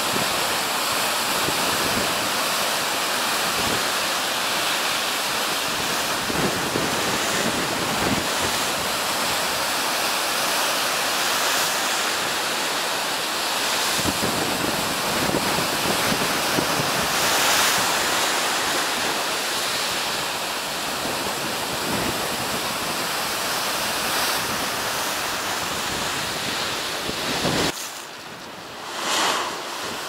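Heavy storm surf breaking and churning against a rocky shore, with strong wind buffeting the microphone. Near the end the sound drops abruptly to quieter water against a harbour quay, with one brief surge.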